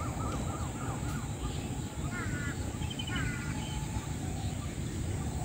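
Crows cawing, a short series of calls about two and three seconds in, with a few short bird chirps earlier, over a steady low rumble.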